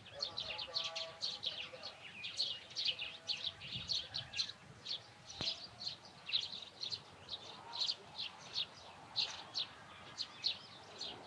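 Small birds chirping: a steady stream of short, high calls, several a second, with a single sharp click about five and a half seconds in.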